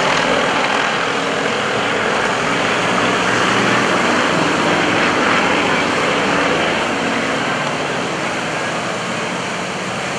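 Radial-engined Yak-52 and Nanchang CJ-6 aerobatic trainers in flight: a steady drone of engines and propellers over a broad rushing hiss, easing slightly near the end.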